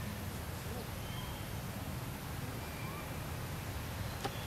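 Outdoor ambience: a steady low rumble with a few faint, short high chirps, and a single sharp click about four seconds in.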